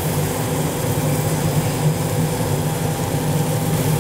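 Coffee roaster's cooling tray running: a blower draws air through the freshly roasted beans while the stirring arms turn them, a steady mechanical hum with a few constant tones.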